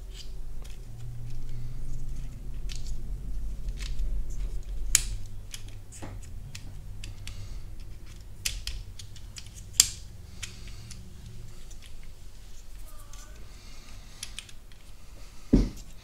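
Small hard-plastic clicks and snaps as a climate-control panel's plastic button frame is pressed and seated into its housing by hand, with two sharp clicks about five and ten seconds in. A heavier thump comes near the end.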